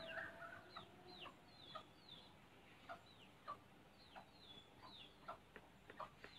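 Faint bird calls: short, high chirps falling in pitch, repeating about twice a second.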